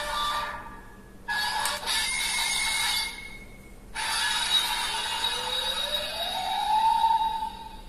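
Electronic sound effects from a toy Ultraman transformation device reading an Ultraman Dyna card, in three bursts with short pauses between them and a rising tone near the end.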